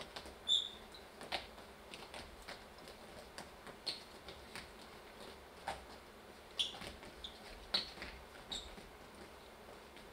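Dancers' sneakers squeaking and tapping on a stage floor: scattered short, high squeaks and soft footfalls, with no music.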